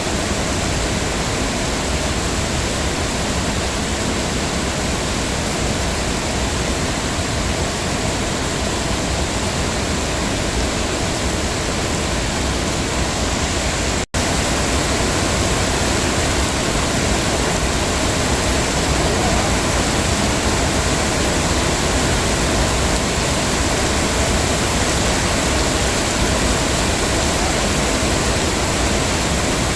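Heavy rain falling steadily, an even hiss. It drops out for a split second about halfway through.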